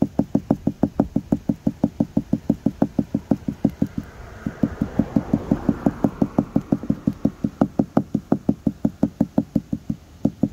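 Rapid, light tapping on a 2007 Chevy HHR's windshield glass, about six or seven dull knocks a second, with a brief break about four seconds in. The tapping helps the air bubbles work out of the chip while the repair kit's injector holds it under vacuum.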